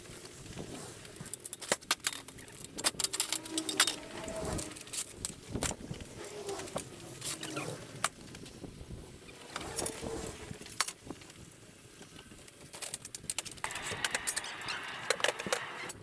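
Aluminium scaffold tower being taken apart: irregular metallic knocks and clanks as the frames and braces are unclipped and set down, loudest a few seconds in.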